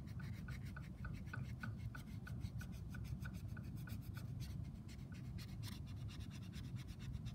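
Plastic vinyl-application squeegee rubbed firmly back and forth over decal transfer tape on a laptop's palm rest: a steady run of rubbing strokes, about three a second.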